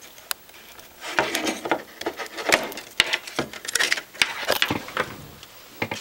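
An opened old hard drive being handled by hand: a light click, then from about a second in irregular rustling with many small clicks and knocks of its metal casing and parts.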